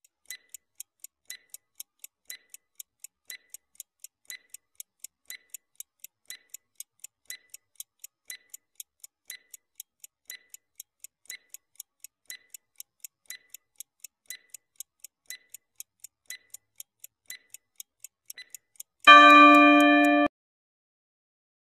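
Countdown stopwatch sound effect: a clock ticking tick-tock about twice a second, then a loud alarm tone, about a second long, as the countdown reaches zero near the end.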